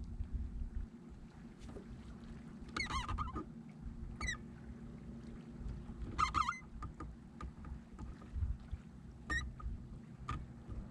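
A bird calling in short, wavering cries about five times, over a steady low hum and the low rumble and light knocks of a kayak on the water.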